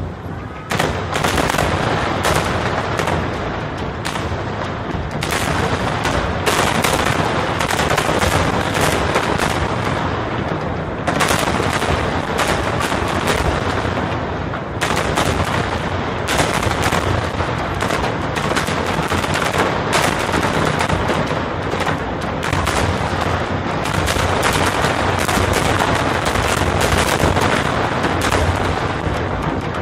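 Aerial fireworks display: a dense, continuous run of shell bursts and crackle, many sharp bangs a second with no pause.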